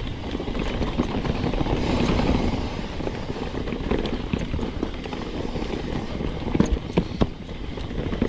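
A Specialized Stumpjumper Evo mountain bike rolls fast down a dirt singletrack, with the steady rumble of tyres on dirt and wind buffeting the camera microphone. A few sharp knocks of the bike clattering over bumps come near the end.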